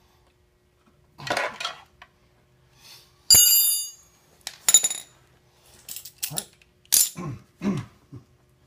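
A series of sharp metallic clinks and clatters, half a dozen in all; one about three seconds in rings on briefly like a struck metal part.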